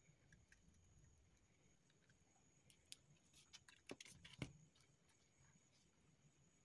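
Near silence with faint handling noise: a few small clicks and rustles of a plastic TV remote and its wires being handled, in the middle of the stretch.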